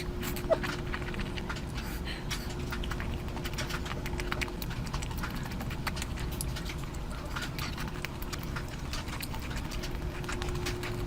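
Close-miked chewing and mouth sounds of someone eating curry by the mouthful: a steady run of irregular wet clicks and smacks.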